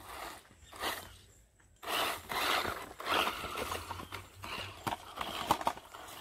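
Irregular crunching and scuffing bursts about a second apart, with a few sharp clicks: footsteps in sand and dry litter, mixed with a brushless RC car's tyres churning through sand.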